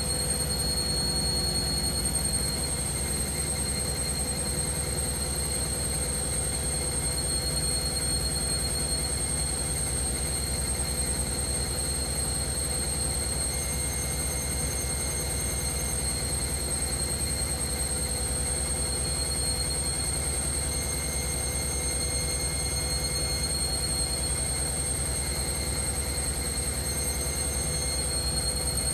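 Washing machine running: a steady low mechanical hum with faint high-pitched whines, unchanging throughout.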